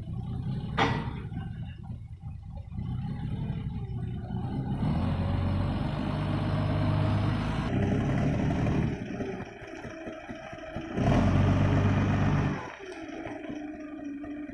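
A forklift's engine running and revving as it drives with a load of timber, rising in pitch for a few seconds in the middle. There is a sharp knock about a second in, and a louder surge of engine noise near the end that cuts off suddenly.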